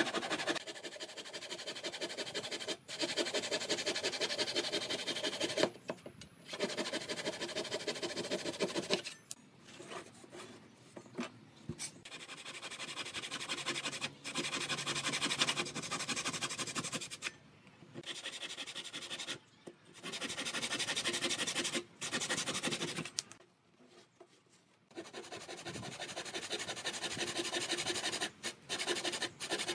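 Thin-bladed hand saw cutting slots into the edge of a round wooden tabletop: fast, even back-and-forth rasping strokes in spells of a few seconds, broken by short pauses as the saw is set in a new spot.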